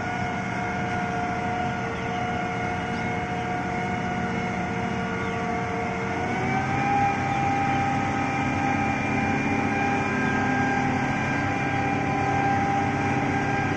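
Preet combine harvester's diesel engine running with steady whining tones, stepping up in pitch and getting louder about halfway through as the machine works to climb out of the field onto the road.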